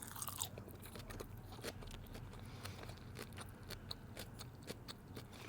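A person chewing a mouthful of sushi roll close to the microphone: faint, irregular small crunches and wet clicks.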